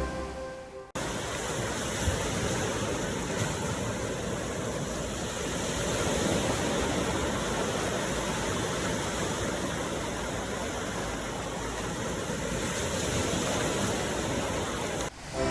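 Steady rush of ocean surf, an even wash of water noise with a gentle swell in the middle, cutting in sharply about a second in and stopping abruptly just before the end. Soft music fades out at the very start.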